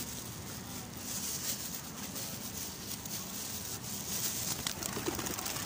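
Feral pigeons feeding on paving: faint soft wing flutters and rustles over a steady outdoor hiss.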